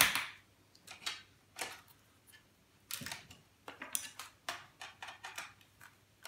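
Screwdriver and small metal laptop parts clicking and scraping as a laptop CPU is worked loose from its socket: one sharp click at the start, then a dozen or so short, irregular clicks and scrapes.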